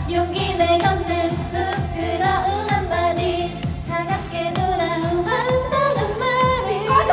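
Women singing a Korean pop song along with a karaoke backing track that has a steady beat.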